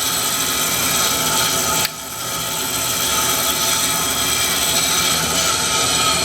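Doall 2013V vertical bandsaw running in its high speed range, a steady whir with many steady tones. About two seconds in the level drops suddenly and builds back up over the next second.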